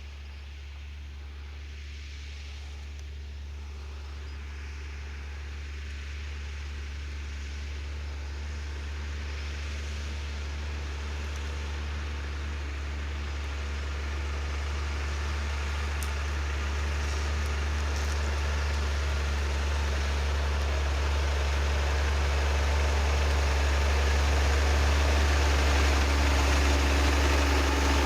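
New Holland tractor's diesel engine working under load while ploughing: a steady low drone that grows gradually louder throughout.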